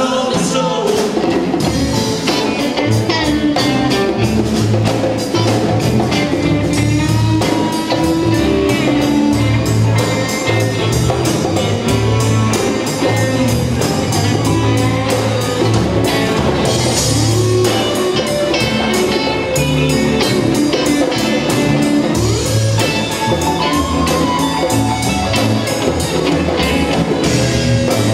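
A live rock band playing: electric guitars over a steady drum-kit beat.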